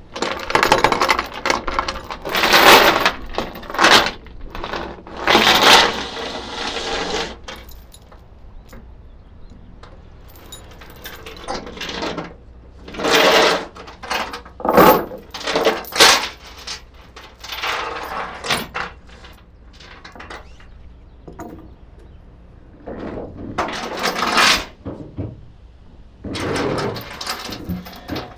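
Steel load chains rattling and clanking as they are lifted, dragged and dropped on a flatbed trailer deck, in a series of bursts a second or two long with short pauses between.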